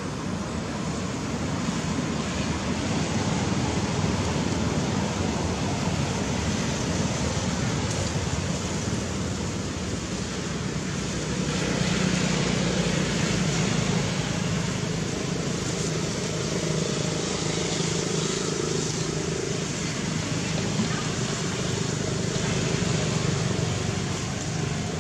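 Steady outdoor background noise of distant road traffic, with a low engine hum that grows a little louder around the middle and then fades.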